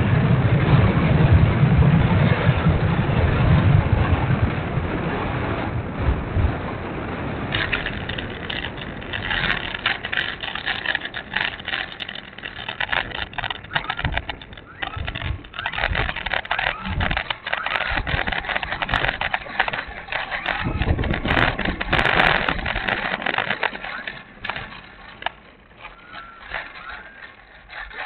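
Air rush and electric motor noise through a tail-mounted camera on a twin-motor FMS B-25 RC plane coming in low, with a loud low rumble. From about eight seconds in it turns to a rough crackling rattle as the plane runs on the ground, louder again around twenty-one seconds in before dying down.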